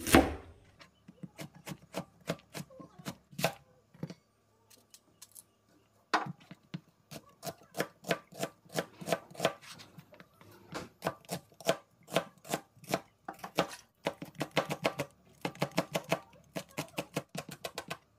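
Knife chopping food on a cutting board in runs of quick strokes, several a second. A louder knock comes at the very start, and there is a short pause about four seconds in before the chopping resumes.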